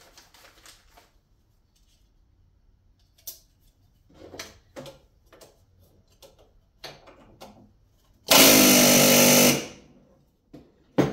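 Pneumatic rivet gun setting a blind aluminium rivet: one loud burst lasting just over a second, about eight seconds in. Before it, light clicks and taps of parts and rivets being handled on the bench, and a sharp click near the end.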